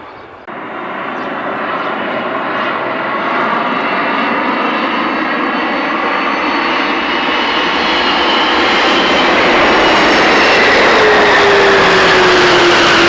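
Airliner engines growing steadily louder as the aircraft approaches, starting abruptly about half a second in. Near the end, whining tones fall in pitch as it passes close by.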